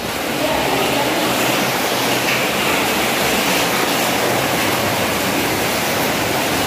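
Rain falling steadily, an even, loud hiss with no breaks.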